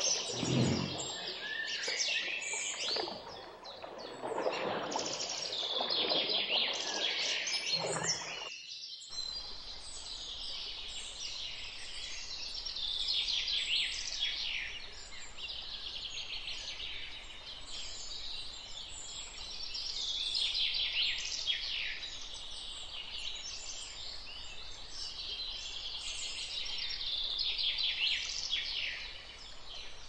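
Many small birds chirping and singing, short overlapping calls. In the first several seconds deeper irregular sounds run beneath the birdsong; about nine seconds in these stop abruptly and a steadier background of birdsong continues.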